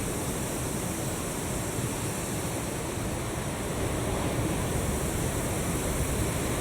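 Ocean surf washing steadily, an even rushing noise with no separate breaks standing out.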